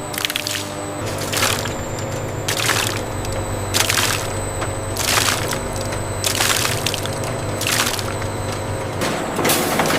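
Factory machinery humming steadily, with a crunching, splintering burst about every second and a quarter as fibrous banana stems are worked through the processing line.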